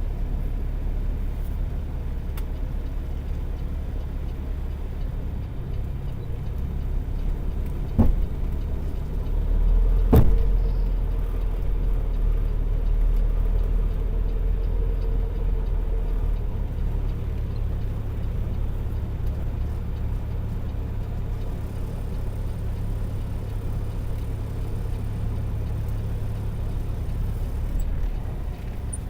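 Semi truck's Cummins ISX diesel engine running with a steady low rumble. Two sharp knocks come about 8 and 10 seconds in, the second the louder.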